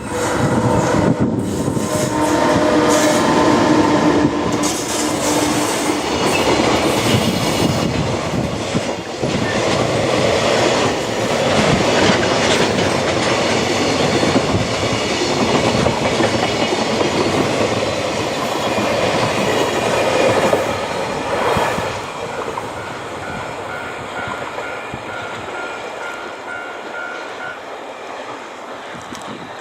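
EH500 electric locomotive and a long rake of Koki container wagons passing close by, the wheels clattering over the rail joints. The sound stays loud for about twenty seconds, then fades as the end of the train goes away.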